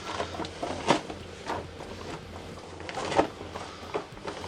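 A few light clicks and knocks from handling a hot, freshly melted piece of HDPE plastic and the tools around it, over a faint low steady hum.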